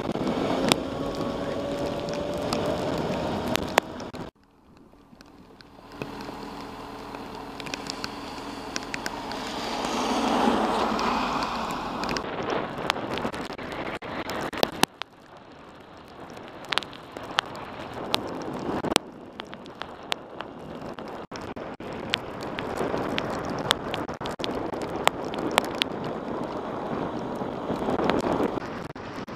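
Yamaha FZ6 motorcycle's inline-four engine running, with a rising pitch as it pulls early on, under wind rushing over a bike-mounted camera's microphone. Raindrops tick sharply on the camera housing throughout. The sound cuts down abruptly about four seconds in and again near fifteen seconds.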